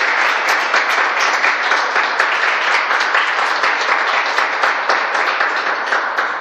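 A small group of people applauding with steady, dense hand clapping.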